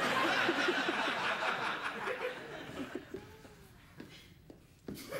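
People laughing and chuckling, dying away after about three seconds, followed by a few short knocks near the end, the last one the loudest.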